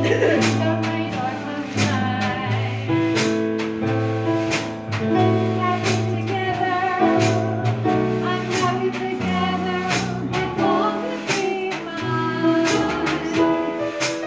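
Live jazz from a keyboard-and-drums duo: Casio electric keyboard playing sustained chords over a moving bass line, a snare drum and cymbal marking a steady beat, and a woman singing.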